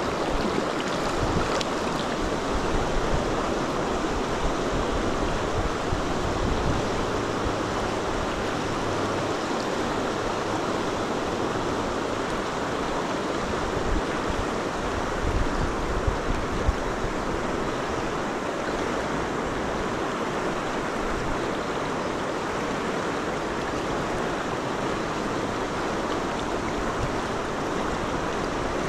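Steady rush of water running over a shallow, fast river riffle, with a few faint low bumps around the middle.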